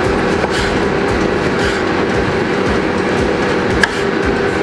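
Air fryer's fan running with a steady mechanical hum while it cooks, with a couple of sharp knife taps on a chopping board as cucumber is cut into strips.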